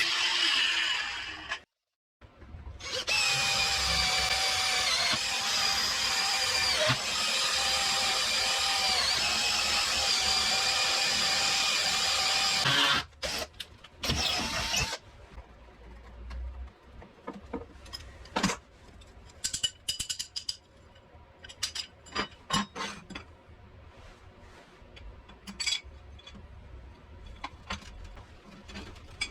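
A power tool motor runs with a loud, high whine for about ten seconds and then stops. It starts up again briefly, and after that come scattered light clicks and knocks.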